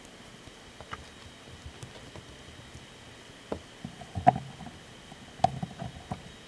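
Light handling sounds of Play-Doh and plastic tools being worked on a tabletop: a scattering of soft taps and clicks in the second half, over a faint steady hiss.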